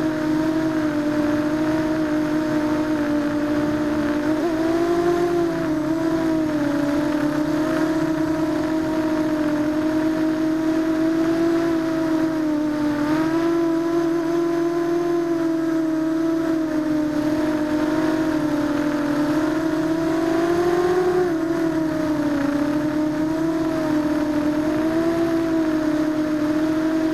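ZMR250 quadcopter's four brushless motors and propellers, heard from its onboard keycam: a steady buzzing drone whose pitch wavers with the throttle and briefly rises a few times.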